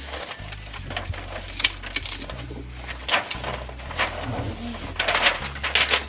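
Small hard household objects clinking and knocking as they are handled, with several sharp clicks scattered through, over a steady background music bass line.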